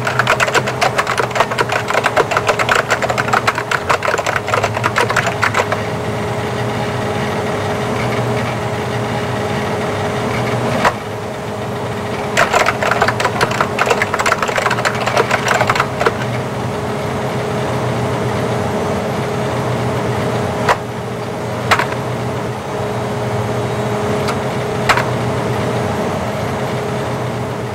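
Typewriter-style typing: fast runs of key clatter over a steady motor hum, one run in the first six seconds and another from about twelve to sixteen seconds, with single sharp clacks between and toward the end.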